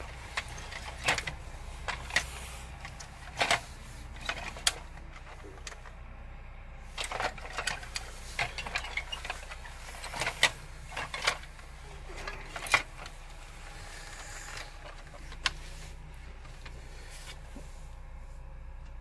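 Irregular clicks and light knocks of hard plastic being handled: the opened plastic chassis and parts of a 1980s MB Bigtrak toy moved about during disassembly, over a steady low hum.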